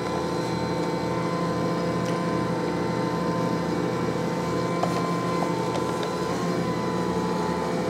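Ankarsrum Assistent stand mixer's motor running steadily as its roller kneads a large batch of bread dough in the steel bowl, a constant hum with a regular low pulsing.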